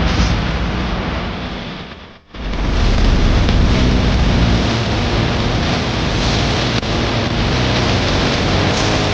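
Loud background rock music with dense, distorted sound. It fades out about two seconds in, and a new track starts straight after.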